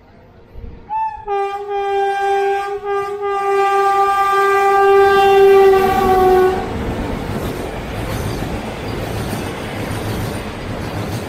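An electric locomotive's horn sounds one long blast as the train approaches and passes, sagging slightly in pitch. It cuts off about two-thirds of the way through, leaving the steady rumble and clatter of container wagons rolling by.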